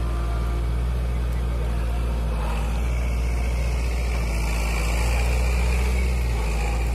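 Kubota L5018 tractor's four-cylinder direct-injection diesel engine (Kubota V2403) running steadily under load while driving a rear rotary tiller through grassy soil, swelling slightly about five seconds in.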